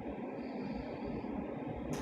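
Steady low background noise and hiss, with one short click near the end.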